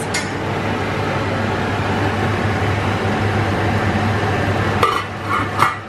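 Steady whirring noise with a low hum from a running kitchen appliance. A few sharp clicks and brief squeaks about five seconds in.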